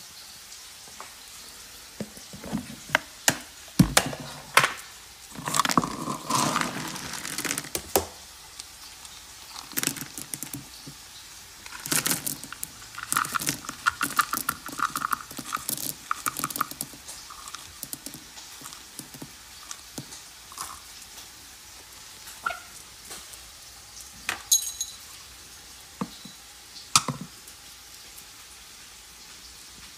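Dry dog kibble rattling and clattering in a plastic storage bin as it is scooped by hand, with many scattered clicks and knocks, busiest in the first half.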